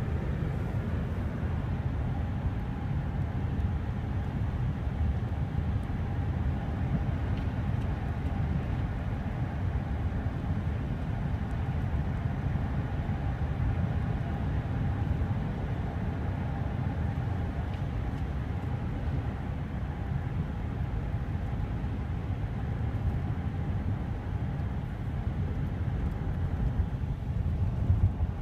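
Steady low rumble of a car in motion heard inside the cabin, road and engine noise at an even level throughout, with a faint steady hum above it.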